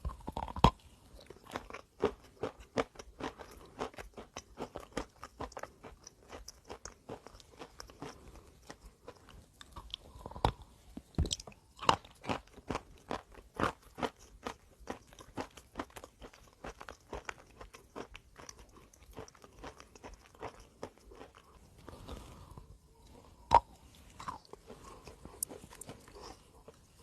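A person biting and chewing chalk close to the microphone: a steady run of crisp crunches, with a few louder bites now and then.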